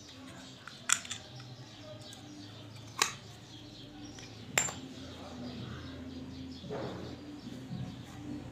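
Sharp metal clicks and clinks from a Chinese B2 spring air rifle's compression tube and parts being worked with pliers to take the piston out; three loud clicks about a second, three and four and a half seconds in.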